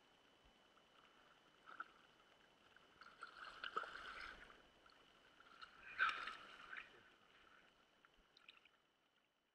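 Water splashing as a large rainbow trout thrashes at the surface and is scooped into a landing net: a brief splash, then two splashy spells, the loudest about six seconds in, dying away near the end.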